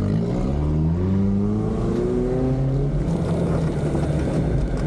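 An off-road 4x4's engine heard from inside the cab, rising in pitch over the first two seconds or so as it accelerates, then holding a steady speed.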